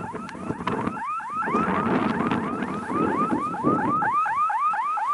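Electronic alarm or warning siren sounding a rapid rising chirp over and over, about four times a second and speeding up slightly, with a car driving by underneath.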